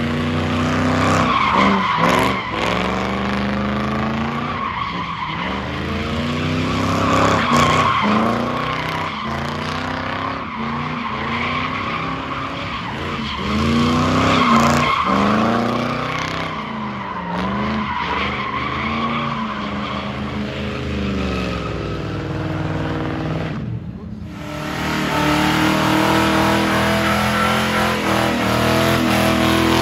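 A car doing donuts: the engine revs rise and fall over and over while the rear tyres squeal and slide. About 24 seconds in the sound drops out briefly, then an engine holds steadier revs with tyre noise.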